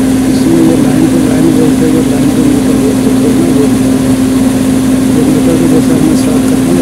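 FG Wilson diesel generator set running steadily at rated speed with no load on it: a loud, even engine hum carrying one strong steady low tone.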